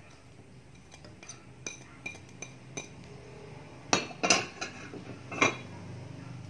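Dishes and cutlery clinking: a run of light clinks, then a few louder knocks of kitchenware about two-thirds of the way through.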